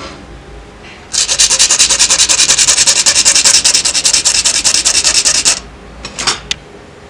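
A small part of a Matchbox Ferrari Testarossa diecast model rubbed quickly back and forth on an abrasive surface: a rapid sanding scrape, about ten strokes a second, for several seconds. It stops suddenly, and two short scrapes follow near the end.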